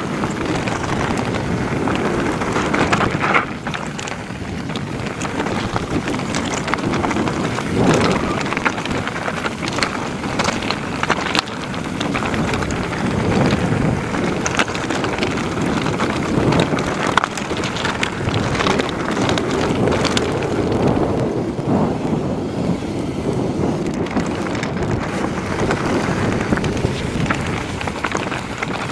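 Mountain bike descending a rocky track at speed: tyres rumbling and crunching over loose stones, with frequent rattles and knocks from the bike, under heavy wind buffeting on the microphone.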